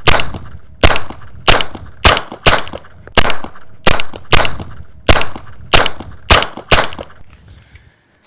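Suppressed 9mm carbine (Noveske Space Invader with a Rugged Obsidian 9 suppressor in its short configuration) firing about a dozen shots one at a time, roughly one every half second to just under a second, stopping about 7 seconds in. It is not incredibly loud, but each shot has a crack from the supersonic ammunition.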